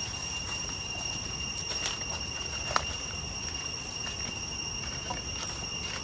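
Cicadas calling in a steady, unbroken high-pitched whine. Footsteps on a leaf-covered forest trail add scattered taps, with one sharp tap about halfway through.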